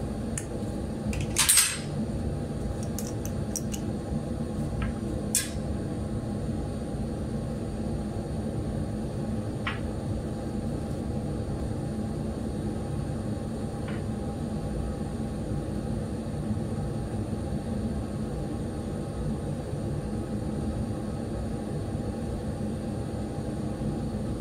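Steady low hum of a laboratory fume hood's ventilation, with a few light clinks and taps as an airbrush and glassware are handled. A brief sharp burst about a second and a half in is the loudest moment, and fainter clicks follow at intervals of a few seconds.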